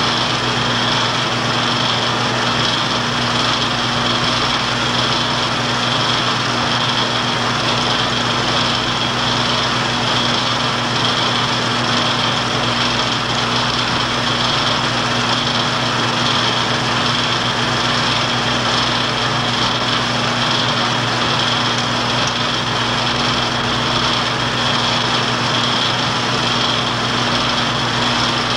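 Film projector running: a steady motor and fan hum with an even mechanical whir.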